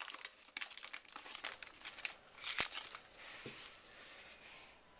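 Baseball trading cards and their packaging being handled: irregular crinkling and rustling with sharp flicks. It dies down to a faint hiss over the last couple of seconds.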